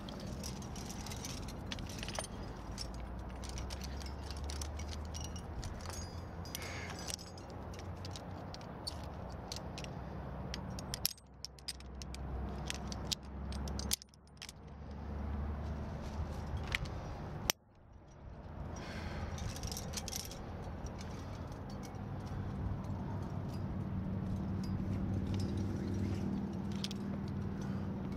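Metal climbing gear clinking and jangling: the steel chains of a rock-climbing anchor and carabiners rattling as they are handled and clipped, many small clicks over a steady low rumble. The sound drops out sharply three times midway.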